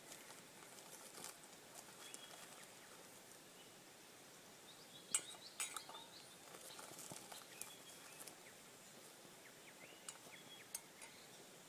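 Sparse light metal clinks and clicks of camp cookware and a spoon, a few seconds apart, the sharpest about five seconds in, with faint bird chirps behind.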